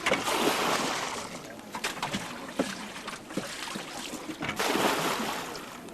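Water splashing and sloshing around an inflatable river raft, in two swells about four seconds apart, with scattered light knocks in between.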